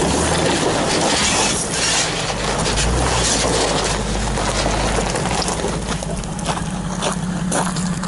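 2001 Nissan Xterra's engine running at low speed as it crawls over loose rock, its tyres crunching on the gravel, with the engine note shifting about five seconds in. Several sharp clicks of stones near the end.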